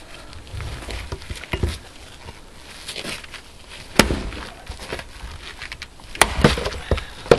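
Leveraxe splitting axe chopping firewood on a chopping block: sharp chops into the log about four seconds in and a quick cluster of chops and clattering split pieces near the end.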